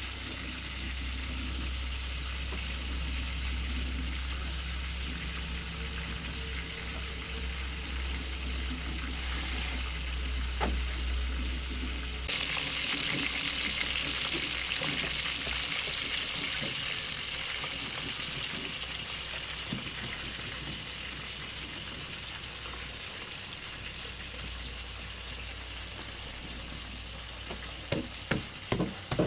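Hot oil sizzling steadily as food fries, the sizzle turning brighter and losing a low hum about twelve seconds in. Near the end comes a quick run of knocks, about two a second.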